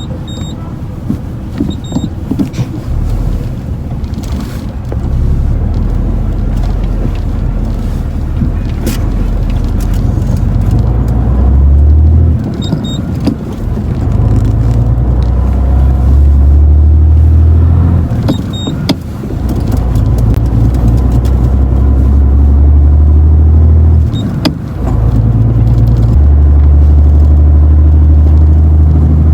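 Heavy diesel engine running loud under load, its low drone dropping off briefly three times and picking up again, like a heavy truck changing gear.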